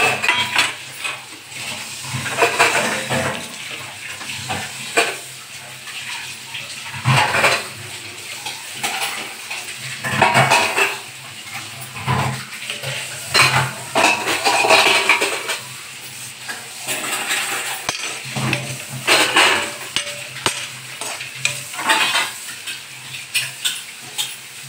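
Perforated steel skimmer scraping and clanking against a metal kadhai as fried green chillies are scooped out onto a steel plate, in irregular strokes with short pauses between them. A steady low hum runs underneath.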